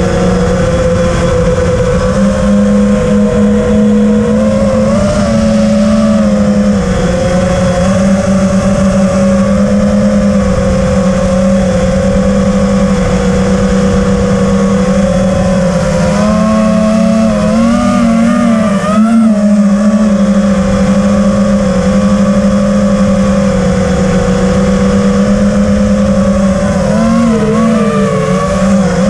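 FPV racing quadcopter's brushless motors and propellers whining, picked up by the onboard camera. The pitch holds mostly steady and wavers up and down with throttle changes, with a few quick rises and dips about two-thirds through and again near the end.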